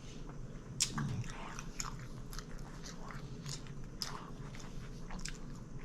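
Close-up biting and chewing of a Subway sub sandwich: irregular crisp, crackly bite and chew sounds.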